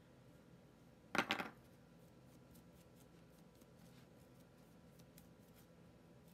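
A paintbrush and small wooden cutouts handled on a craft table: faint clicks and rubbing, with one short, louder scrape a little over a second in.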